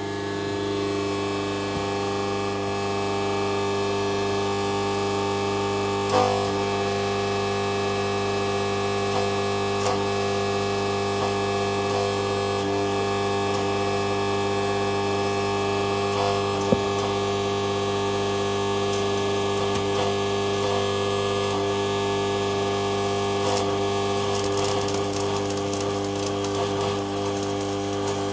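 Draper MMA inverter arc welder humming steadily as a stick-welding electrode burns, with scattered crackles and pops from the arc that grow denser near the end.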